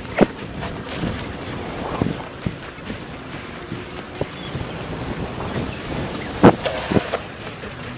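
Steady rolling rumble of skate wheels on pavement mixed with wind buffeting the microphone, as the skater rolls along. A few sharp knocks stand out, the loudest about six and a half seconds in.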